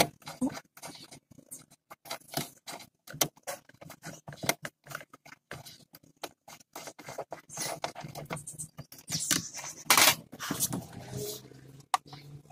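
A screwdriver turning a screw into a Suzuki Mehran's plastic steering-column cover, with many small irregular clicks, scrapes and squeaks of plastic trim and a louder scrape about ten seconds in.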